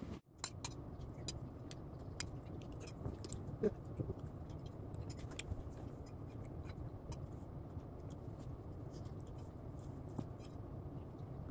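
A person eating from a bowl with a spoon: faint chewing and many small scattered clicks of the spoon against the bowl, over a steady low background noise.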